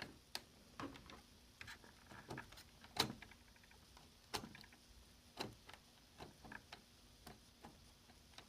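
Faint, irregular clicks of a briefcase combination lock's number wheel being rolled by hand while a shim feels for the wheel's flat spot, the loudest click about three seconds in.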